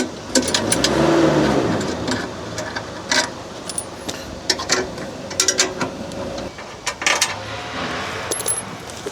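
Clicks and knocks of a skid-steer loader's seat and covers being unlatched and handled. About a second in, an engine is heard briefly rising and then falling in pitch.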